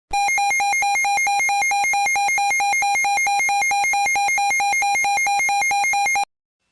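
Synthesized electronic alert tone: a harsh, buzzy beep pulsing rapidly, about five times a second, for about six seconds, then cutting off abruptly.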